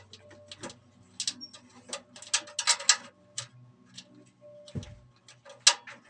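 Irregular small clicks and taps of computer hardware being handled during assembly, thickest about halfway through, with a soft thump and a sharper click near the end.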